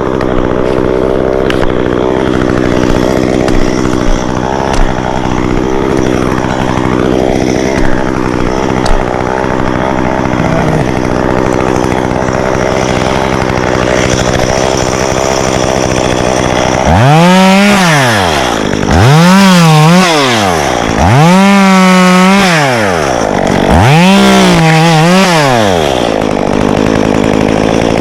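Stihl two-stroke chainsaw idling steadily, then revved up to full throttle and let back down four times in quick succession from a little past halfway, each rev holding briefly at the top before dropping.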